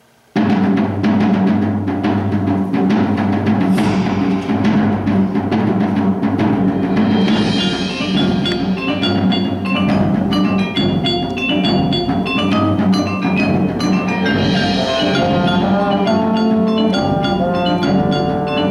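A high school ensemble playing, with the percussion section prominent. The music starts suddenly, with dense strikes, and about seven seconds in, quick runs of bright pitched notes come in over it.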